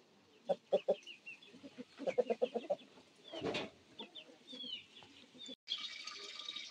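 Chickens clucking in short runs of quick clucks, with a longer, harsher call about three and a half seconds in, and small birds chirping high above them. Near the end the sound cuts suddenly to a steadier high-pitched background.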